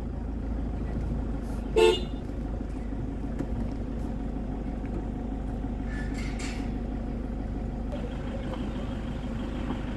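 Steady low rumble of a car driving, with one short car horn toot about two seconds in.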